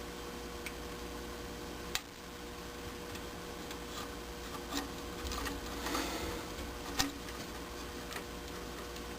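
Handling noises from wires and small furnace parts being worked by hand: a few sharp clicks, the clearest about 2 and 7 seconds in, with rubbing and rustling in between, over a steady faint hum.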